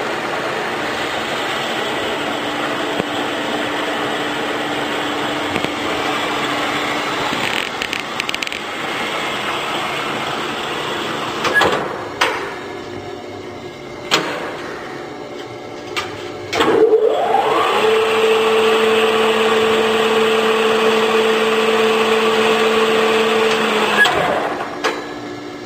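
Mori Seiki MS-850 engine lathe running under power with a steady hum. It runs down, and a few sharp clunks follow. About two-thirds of the way in the machine spins up with a quickly rising whine, runs with a steady whine, and stops near the end.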